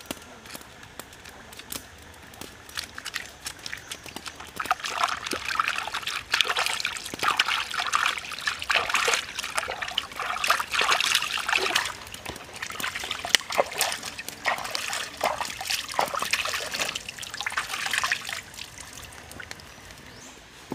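Hands washing in shallow stream water, sloshing and splashing in irregular bursts, busiest through the middle, over a fainter trickle of the stream.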